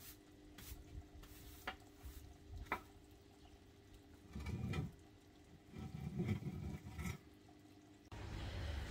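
Broom sweeping leaf and twig debris across a concrete path: a few light scattered clicks, then two longer scraping strokes about halfway through. Near the end it gives way to a steadier, louder noise.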